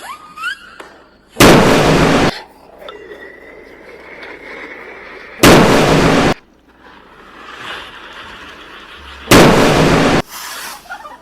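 Three loud explosion sound effects, about four seconds apart, each lasting about a second and cutting off abruptly. Quieter fireworks sounds come between them, with rising whistles near the start and a long thin whistle after the first blast.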